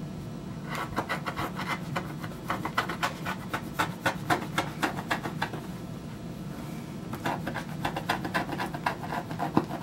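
A dull knife blade cutting through thick leather on a cutting board in quick repeated sawing strokes, a scratchy rasp several times a second, pausing briefly about halfway through. The blade is not sharp enough anymore and keeps slipping on the leather.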